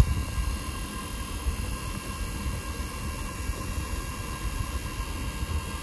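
Smiths heater blower fan motor, wired straight to a battery on a bench test, running steadily at full speed with a whir of motor and rushing air and only slight vibration.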